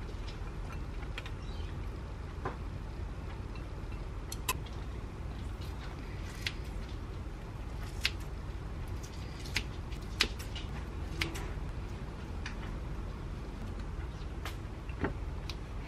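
Scattered sharp clicks and taps of chopsticks and kitchen scissors against a ceramic plate as cabbage salad is served and a chicken breast is snipped into pieces, over a steady low hum.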